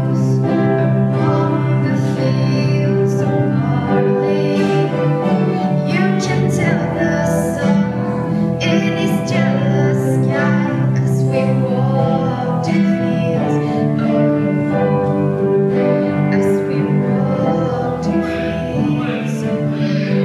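Live acoustic guitar strummed steadily to accompany a woman singing a slow song.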